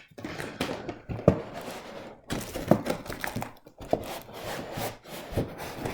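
Cardboard box and paper packaging being opened and handled: irregular rustling and crinkling with several short knocks.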